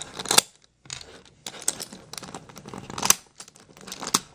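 Plastic pieces of a Maru 5x5 puzzle cube clicking and scraping as they are twisted and worked loose during disassembly, with sharp clicks about half a second in and about three seconds in.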